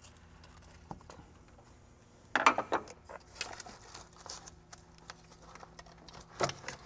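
Factory plastic charge tube being worked off its rubber coupler by hand: a few short scrapes and knocks, with a louder cluster about two and a half seconds in and another near the end, over a faint steady hum.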